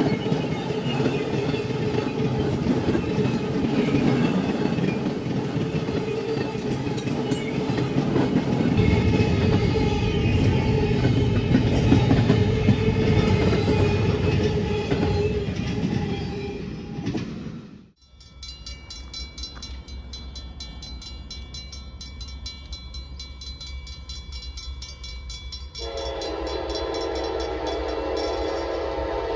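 A train passing close by, a dense rumble with wheel noise on the rails. After an abrupt cut, a quieter train scene follows, and a locomotive horn starts sounding a few seconds before the end.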